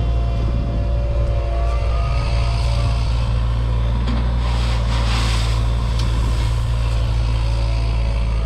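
Mini excavator's diesel engine running steadily, with a hiss that swells and fades about halfway through.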